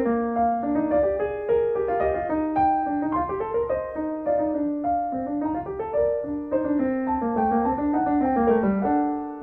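Background piano music: a melody of held notes over a steady accompaniment.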